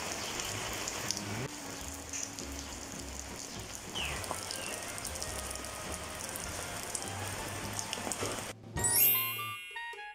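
Steady rain falling, an even hiss. About eight and a half seconds in it cuts off suddenly and music begins.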